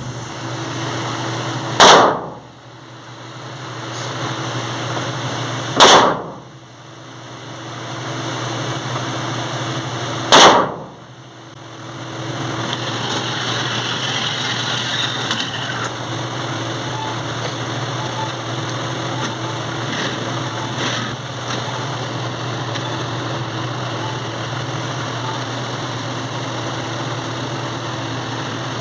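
Three shots from a Glock 17 9mm pistol firing reloaded rounds, about four seconds apart, each sharp and loud; no more shots follow, leaving a steady low background hum.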